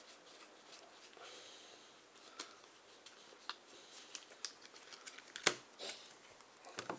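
Game cards being handled: light rustling with scattered taps and clicks, the sharpest about five and a half seconds in.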